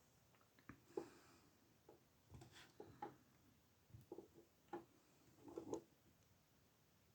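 Faint, irregular clicks and light scrapes of lock picks and a tension wrench working inside the keyway of an old Ruko padlock.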